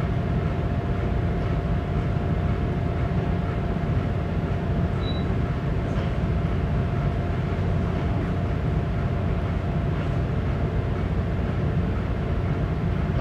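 Steady low rumble of a ship under way, heard inside the wheelhouse: engine and machinery noise carried through the hull, with a steady higher hum over it.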